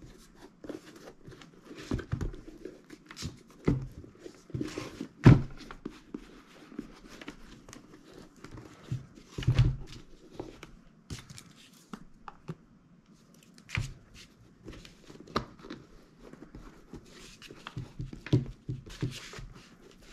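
Fingers rubbing conditioner into a leather work boot, with rustling and crinkling of the paper sheet under the boot as it is handled. A few dull bumps stand out, the loudest about five seconds in and again near ten seconds.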